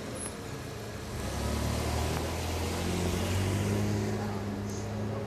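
A car driving past: engine hum and tyre noise swell about a second in, hold through the middle and ease off near the end.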